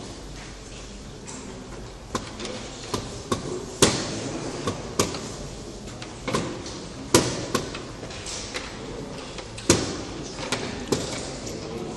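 Wooden draughts pieces knocked down and picked off the board and the game clock's buttons being hit in blitz play: about a dozen sharp knocks at uneven intervals, the loudest about four, seven and ten seconds in.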